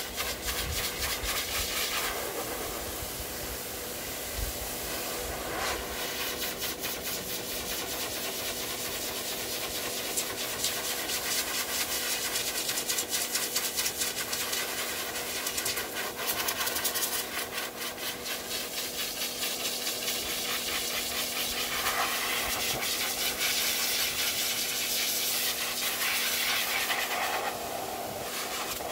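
High-velocity dog dryer blowing air through its hose: a steady rushing hiss over a low, even motor hum. The air sound rises and falls a little as the nozzle is worked over the dog's coat.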